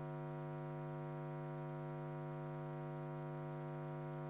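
Steady electrical hum with many overtones, holding an even level and pitch throughout.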